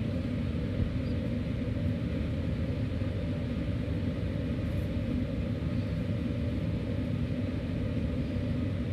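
Steady low background rumble, even and unchanging, with no distinct events.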